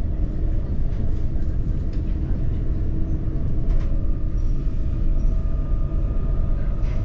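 Moving commuter train heard from inside the carriage: a steady low rumble of the wheels on the track, with a faint steady hum and a few light clicks.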